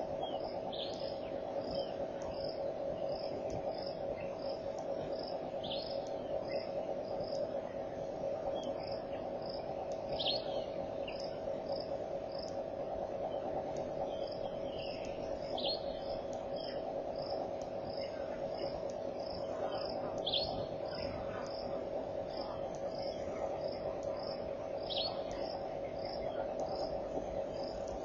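Insects chirping in a steady rhythm of about two short, high chirps a second, with a bird giving a short call about every five seconds, over a steady low hum.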